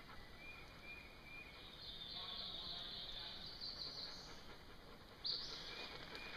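Woodland ambience: high, buzzing calls in a narrow pitch band, one lasting about two seconds in the middle and another starting abruptly near the end, with a few faint short chirps early on.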